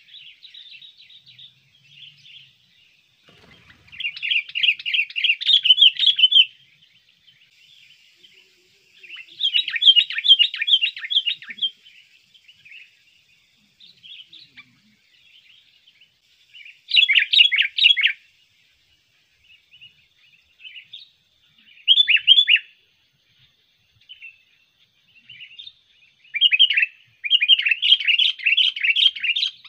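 Sooty-headed bulbul (kutilang), a trained decoy bird, calling in loud chattering bursts of quick notes, five bursts a few seconds apart with softer calls between.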